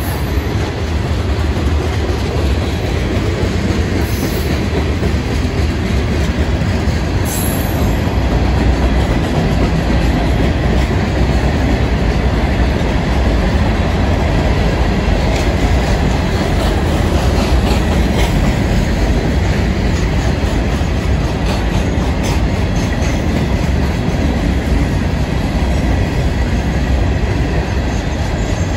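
Florida East Coast Railway freight train of loaded hopper and tank cars rolling past: a steady, loud rumble of steel wheels on rail with clickety-clack over the rail joints.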